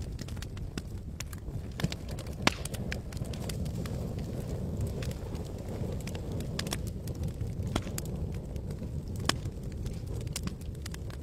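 Campfire burning: scattered sharp crackles and pops from the burning wood over a steady low rumble, with the loudest pops about two seconds in.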